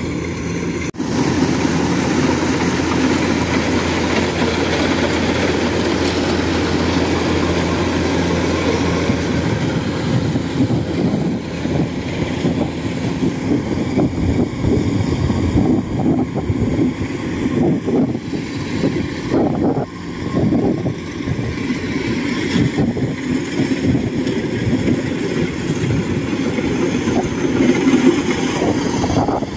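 Kubota DC-105X rice combine harvester running under load as it cuts rice: a steady engine drone, turning rougher and more uneven after about twelve seconds.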